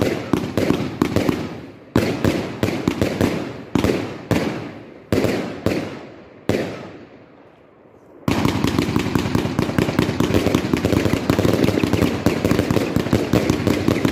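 A fireworks cake firing. For about six seconds shots launch and burst overhead in quick clusters of bangs, each dying away before the next. They fade out, then about eight seconds in they resume as a dense, continuous rattle of rapid reports as many shots go off at once.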